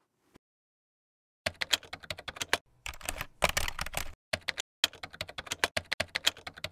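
Fast typing on a computer keyboard: quick runs of keystrokes that start about a second and a half in, with a brief pause midway.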